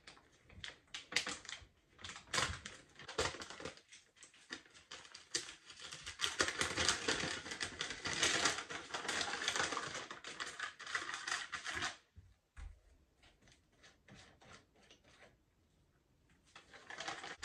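Plastic MRE packaging crinkling and rustling as it is torn open and handled, including the ration-heater sleeve. The crackling is densest in the middle, then thins to a few scattered crinkles.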